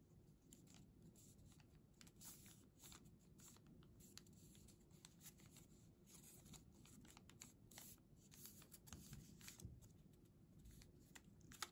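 Faint crinkling and crackling of origami paper as it is pinched and shaped in the fingers, many small irregular crackles over a steady low room hum, with one sharper tick near the end.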